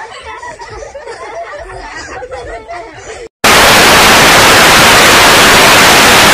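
A high voice giggling. A little past halfway, loud TV static hiss cuts in abruptly and takes over.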